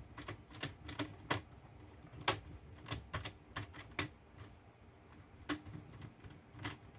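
Plastic screen frame of an Acer Aspire ES 15 laptop being pressed back on, its clips snapping into place: a run of irregular sharp clicks and snaps.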